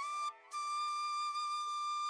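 Background music: a flute melody stepping up through a few notes, breaking off briefly, then holding one long steady note.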